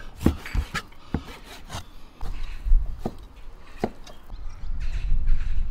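A cleaver chopping pork belly into chunks on a plastic cutting board: irregular sharp chops, several close together in the first two seconds, then single chops about three and four seconds in. A low rumble comes and goes between them.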